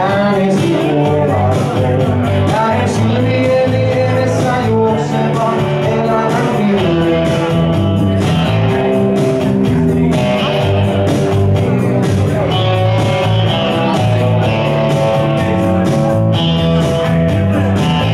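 Live rock music from a Stratocaster-style electric guitar and an electric bass playing together, the bass holding a steady line under sustained guitar notes.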